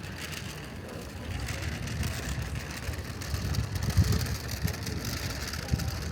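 Outdoor city street ambience: a steady hiss with uneven low rumbling, loudest about four seconds in.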